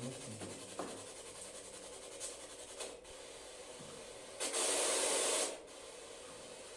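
Steady faint hiss, with a loud burst of rushing hiss lasting about a second just past the middle and a few faint clicks before it.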